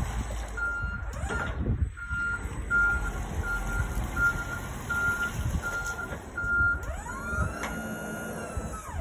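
Hyster J1.5XNT three-wheel electric forklift's reversing alarm beeping at one steady pitch, about three beeps every two seconds. Near the end the beeping stops and an electric whine from the truck rises in pitch, holds, then cuts off.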